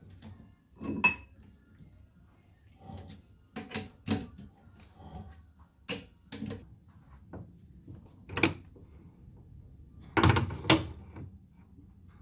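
Steel bar being set into a three-jaw lathe chuck and the jaws tightened: scattered metal clanks and clicks, one ringing clink about a second in, with the two loudest knocks near the end.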